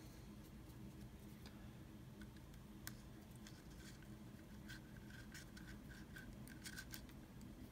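Near silence with faint small clicks and ticks of a small L-shaped wrench turning a 1911 grip screw into a G10 grip panel. One clearer click comes about three seconds in, and a run of soft ticks follows in the second half.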